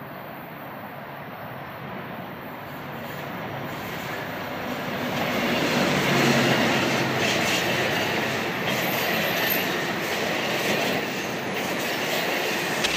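Amtrak passenger train passing close by: diesel locomotive and bi-level passenger cars rolling over the rails with wheel clatter and squeal. The sound grows louder as the locomotive comes past about five to six seconds in, then holds as the cars roll by.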